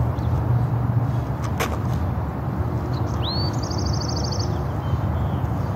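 Steady low outdoor rumble, wind on the microphone or distant traffic. A bird's short rising whistle and quick trill come about three seconds in, and a single click about a second and a half in.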